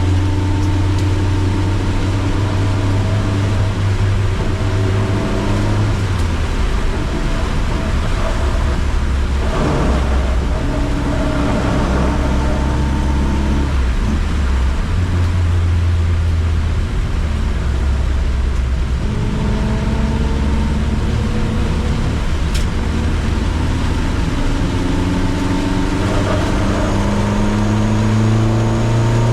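Car engine running hard on a circuit lap, its pitch climbing under acceleration and dropping at shifts and braking, rising steadily near the end. Under it is a steady hiss of rain and wet-road noise.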